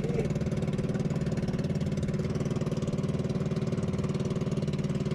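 Small boat engine running steadily at an even speed.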